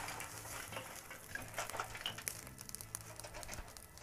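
Burning lump charcoal crackling with many small quick clicks as it is tipped out of a chimney starter into the kettle grill.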